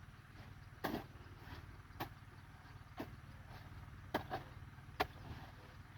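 A series of short, sharp strikes, roughly one a second with a quick double strike about two-thirds of the way through, over a steady low rumble.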